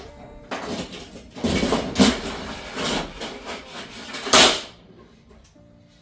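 Rustling, scraping and knocking as household items are handled and packed into a container, with the loudest rustle about four and a half seconds in.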